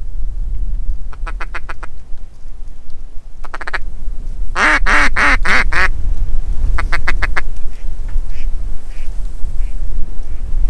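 Hen-mallard quacking from a duck call: a few short runs of quick quacks and one loud descending series of about five quacks in the middle, over constant low wind buffeting on the microphone.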